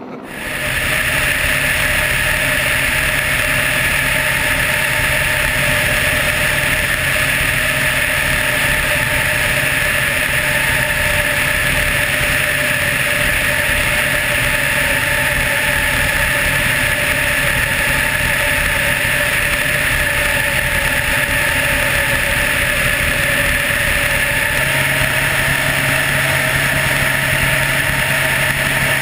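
Helicopter in flight: a steady, unchanging drone of engine and rotor with a few held tones in it.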